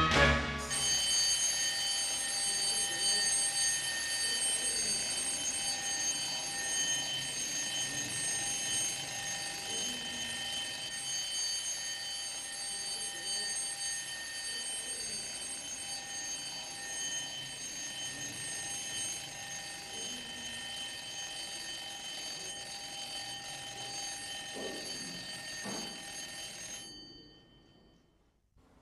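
Alarm clock ringing continuously with a steady, high ring made of several tones, fading out about two seconds before the end.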